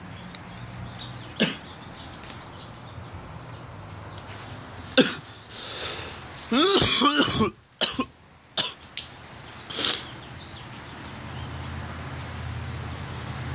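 A person coughing, one loud rough burst lasting about a second near the middle, with several short sharp clicks before and after it.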